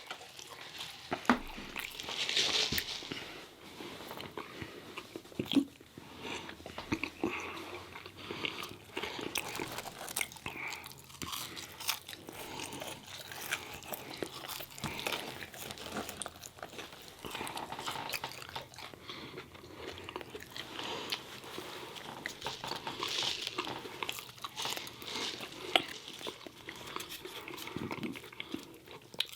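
People biting and chewing crunchy fried chicken tenders, with many short, irregular crunches.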